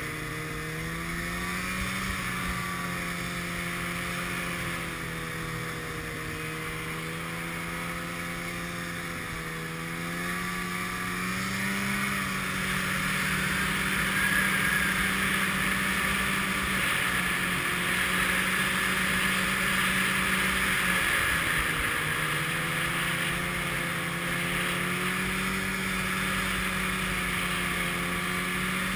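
Snowmobile engine running at riding speed, its pitch wavering a little up and down, over a steady hiss of wind and track noise. It gets louder about halfway through and eases off briefly about two-thirds of the way through before picking back up.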